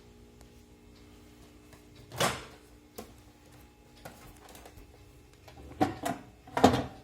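Knocks and clunks from a microwave oven being handled, over a low steady hum. One loud clunk comes about two seconds in, then a small click, then three more clunks close together near the end.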